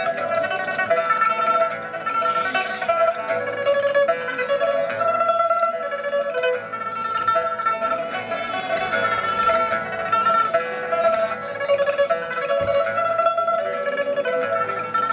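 Pipa, the Chinese pear-shaped lute, played solo: a fast, unbroken stream of plucked notes circling a repeated high note.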